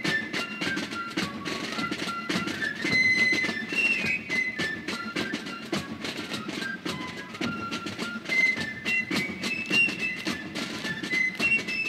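Background music: a high, single-line melody of short notes over a quick, steady percussive beat.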